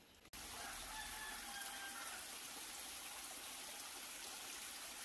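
Shallow stream running over rocks, a steady rush of water. A rooster crows once faintly, a single drawn-out call early on.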